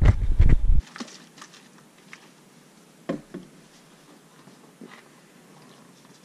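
A low handling rumble for the first second, then faint rubbing of a cloth rag on a plastic headlight lens, with a few light taps and knocks as the headlight housing is handled, the loudest about three seconds in.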